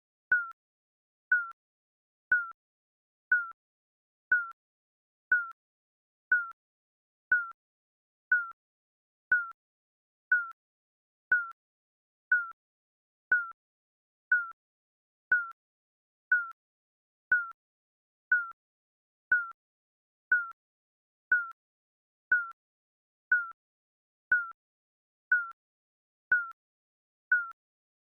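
Digital countdown timer beep sound effect: a short blip once a second, each with a slight dip in pitch, evenly ticking off the seconds.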